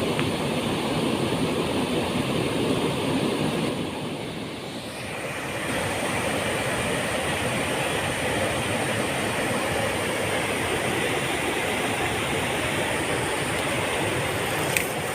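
Waterfall: a steady rush of falling water that dips briefly about four seconds in, with a faint click near the end.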